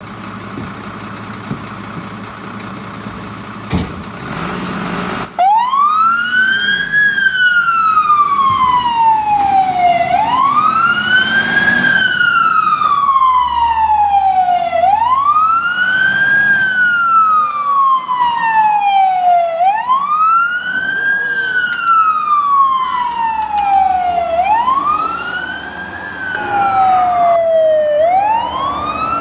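Truck engine running, then about five seconds in a fire engine's wail siren starts, rising quickly and falling slowly in long cycles of about five seconds each.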